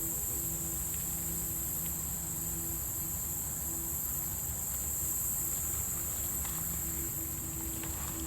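Steady, high-pitched chorus of insects such as crickets, over a low rumble and a faint low hum that comes and goes.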